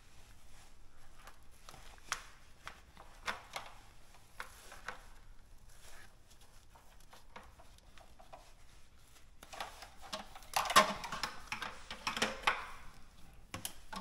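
Handling noise from a foam insulation sleeve and plastic water-line tubing being worked by hand: scattered light clicks and rubbing, with a louder stretch of rustling and knocks about ten to twelve seconds in.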